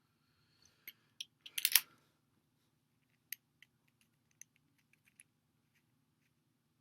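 Skateboard wheel and bearing parts being handled, with sharp little clicks and one short scraping rattle about a second and a half in, then scattered light ticks.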